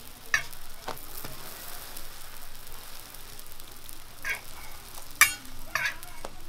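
Oil sizzling on a flat griddle as sweet pumpkin hotteok fry, with several sharp metal clinks as stainless-steel hotteok presses are set down on and lifted off the pancakes; the loudest clink comes a little past five seconds in.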